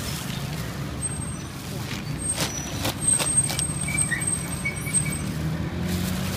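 Street traffic running steadily with a low engine hum, and a few sharp crinkles of a plastic bag being handled about two to three seconds in.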